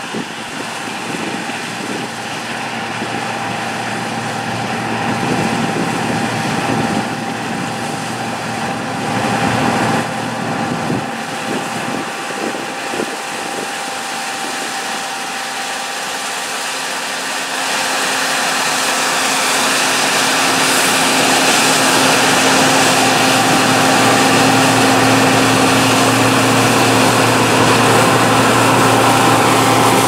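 John Deere C670i combine harvester running steadily as it cuts wheat, a continuous mechanical drone with a few steady tones. It grows louder a little past halfway as the machine comes close.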